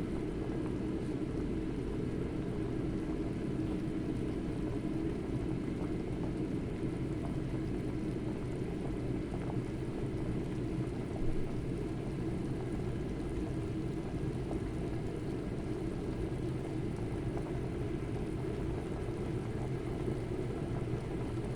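A pot of chicken and spices at a rolling boil: steady, low bubbling with no pause.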